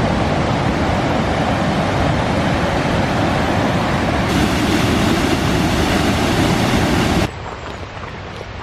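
Steady, loud rush of white water from a mountain stream or cascade. It cuts off suddenly about seven seconds in.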